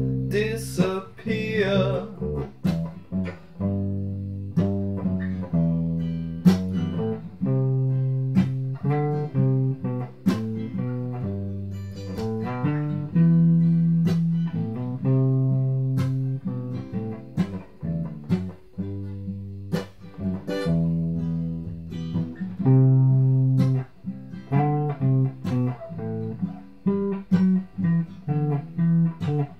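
Two guitars, an acoustic and an electric, playing an instrumental break in a song: a stream of quickly picked single notes over sustained chords. A sung word trails off in the first couple of seconds.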